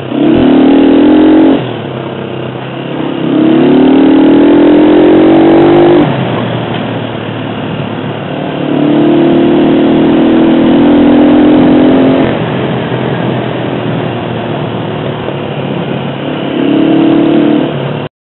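Honda CG Titan 125's single-cylinder four-stroke engine, through a very loud exhaust, pulling away and accelerating four times, rising in pitch with each pull and dropping back between them, as it shifts up or eases off.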